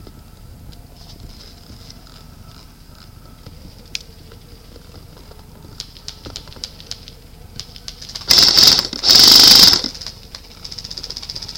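Airsoft electric guns firing on full auto: two loud short bursts close by about eight and nine seconds in, then a quieter, fast, even rattle of fire near the end, with scattered faint clicks before.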